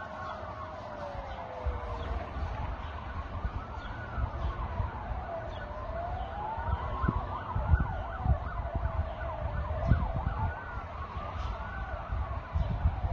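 Several emergency-vehicle sirens wailing at once, each sliding slowly up and down in pitch out of step with the others. A low rumble with occasional knocks runs underneath.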